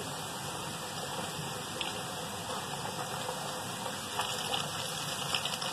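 Battered potato slices (aloo pakoras) frying in oil in an iron karahi: a steady sizzle, with crackling growing busier near the end as a spatula moves them.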